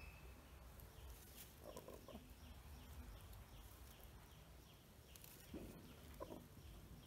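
Faint, soft low calls from a broody hen sitting on eggs: a short call about two seconds in and two more near six seconds. Faint high chirps repeat in the background.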